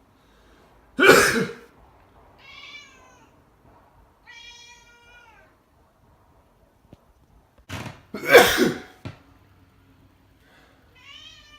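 A person sneezes loudly twice, about a second in and again about eight seconds in. A Burmese cat meows in reply: two meows after the first sneeze, and another near the end.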